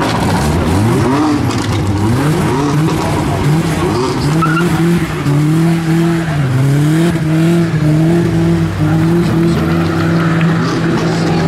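A car engine is revved hard in quick repeated rising sweeps, then held at high revs with a few small dips for several seconds. Tyres squeal and spin under it: a burnout.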